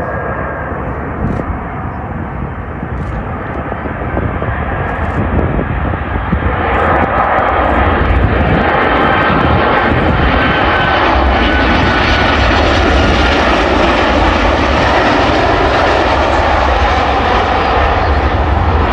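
Twin jet engines of a Boeing 737 airliner on final approach to land. The sound grows louder and brighter about six and a half seconds in as the plane comes close, then holds steady and loud.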